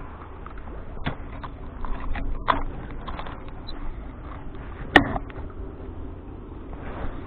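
Scattered clicks and knocks from a spinning rod and reel being handled, the sharpest one about five seconds in, over a low steady rumble.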